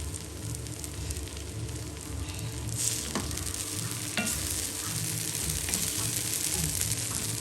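Abacha (shredded cassava) being stirred in a pot with a spoon: a crackling hiss that gets louder about three seconds in, with a couple of knocks of the spoon against the pot.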